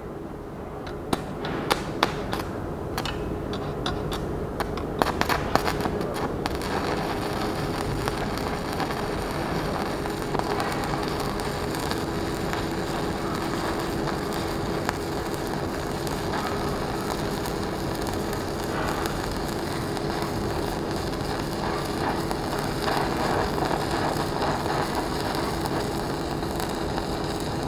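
Stick-welding arc from a Premier 160 inverter welder, a 2.6 mm electrode at 80 amps running a long bead on 3 mm steel plate. Sharp pops and crackles for the first few seconds as the arc is struck and settles, then a steady crackling sizzle.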